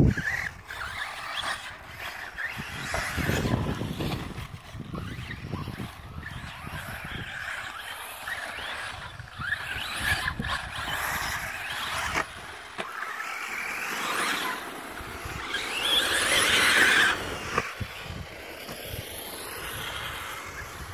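Electric 1/8-scale RC off-road buggies with brushless motors running on a dirt track: a high motor and gear whine that rises and falls with the throttle, over the hiss of tyres on loose dirt. The sound swells loudest about sixteen seconds in as a car comes close.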